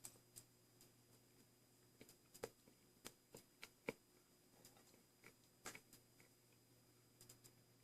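Near silence with faint, scattered clicks and taps of someone eating a baked protein cake.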